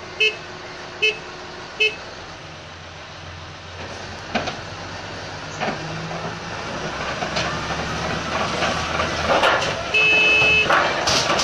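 A large crawler bulldozer's backup alarm beeps three times, about one beep a second. Its diesel engine then works steadily louder with knocks and clatter of brick rubble, a longer alarm tone about ten seconds in, and heavier clattering near the end.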